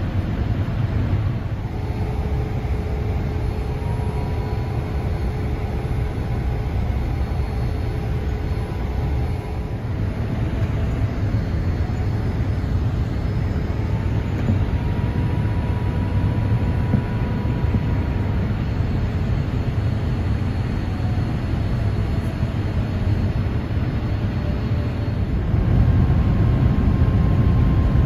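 Steady cabin noise of a Boeing 787-8 on approach, heard beside its Rolls-Royce Trent 1000 engine: a deep rumble of engine and airflow with faint whining tones that shift slightly in pitch. It grows louder a few seconds before the end.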